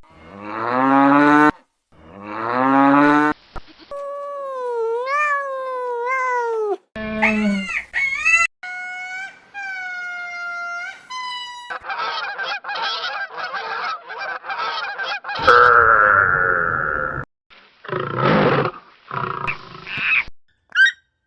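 A string of different animal and bird calls played one after another, each cut off abruptly: rising pitched cries, wavering gliding calls, and a quick stuttering run of calls.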